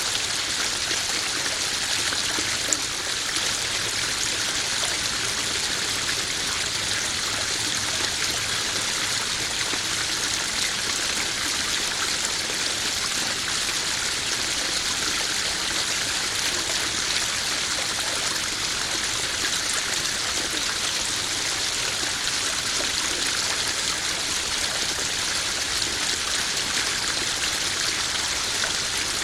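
Small garden pond waterfall splashing and trickling steadily into the pond, a continuous hiss of falling water.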